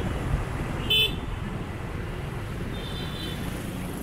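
Steady city road traffic noise, with a short horn beep about a second in and a fainter short beep near the three-second mark.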